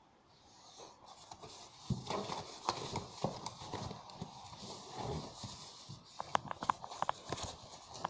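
Packing sheet rustling and cardboard bumping and scraping as a hand unwraps a part inside a carton, starting about two seconds in, with a quick run of sharp taps and clicks around six to seven seconds in.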